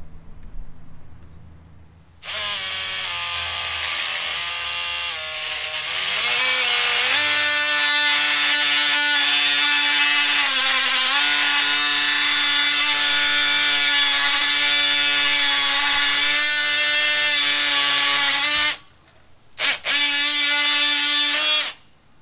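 DeWalt oscillating multi-tool with a sheetrock blade buzzing as it cuts through a piece of AirStone faux stone. It starts about two seconds in, steps up in pitch a few seconds later and runs steadily for a long cut, then stops. After a brief blip it runs again for one short burst.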